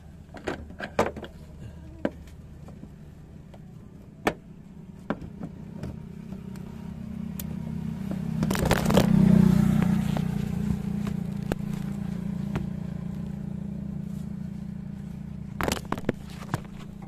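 Small clicks and scrapes of a plastic wiring connector being worked off and on an engine-bay purge valve, over a low engine-like hum. The hum swells to a loud rush about nine seconds in, then eases back.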